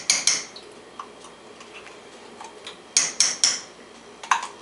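Metal spoon clinking against a can and pot as tomato paste is scraped out into the sauce: a quick run of three sharp clicks at the start and another about three seconds in.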